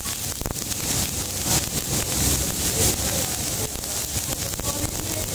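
Stick-welding arc on a galvanized steel pipe, crackling steadily as the electrode burns.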